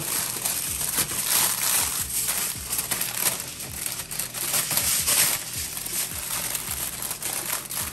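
Aluminium foil crinkling and crackling as it is folded and crimped tight by hand to seal a whole stuffed snapper into a foil packet.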